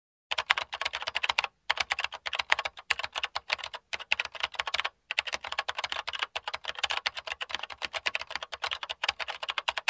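Computer-keyboard typing sound effect: fast runs of key clicks with a few short pauses.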